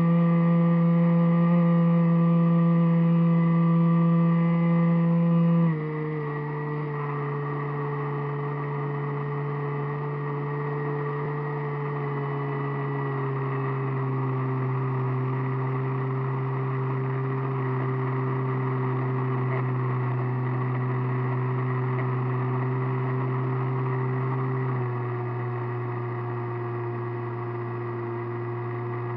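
A radio-controlled airplane's motor and propeller, heard from a camera on board, giving a steady whine that drops in pitch and loudness in clear steps about six seconds in and again near the end as the throttle is eased back.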